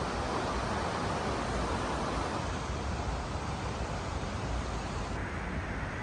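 Steady rushing of a fast, shallow mountain river over a gravel bed.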